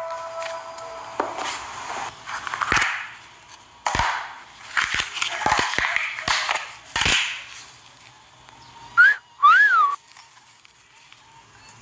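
Handling noise: a run of short rustles, swishes and sharp clicks, then two brief whistle-like squeaks about nine seconds in, the second rising and falling in pitch.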